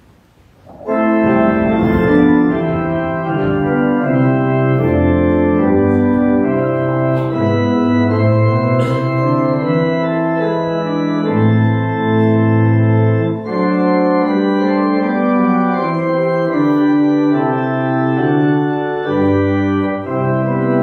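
Organ starts playing about a second in: sustained chords that change every second or two over a low bass line.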